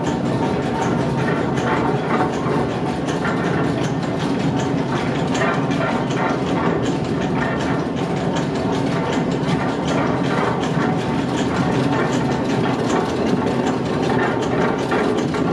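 Stone-grinding grist mill machinery running under power from a hydraulic motor: millstones, gears and shafts turning with a steady, loud clatter of many fast ticks.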